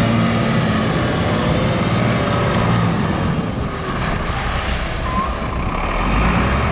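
Renault tractor unit's diesel engine running under throttle as the truck turns tight circles. The engine note rises near the end, with a high whistle coming in.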